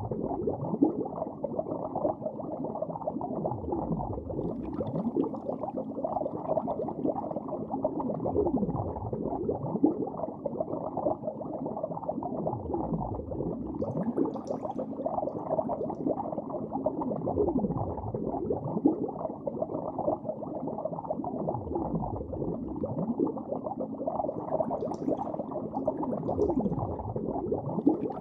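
Muffled underwater-style ambience: dull bubbling and gurgling, with a slow sweep that falls and rises in pitch about every four seconds.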